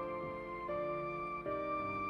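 Slow, gentle background music: a soft melody of held notes, changing pitch about every second.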